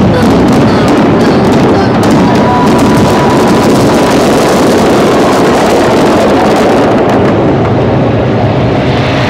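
Fireworks display: a loud, continuous barrage of bangs and crackling shells.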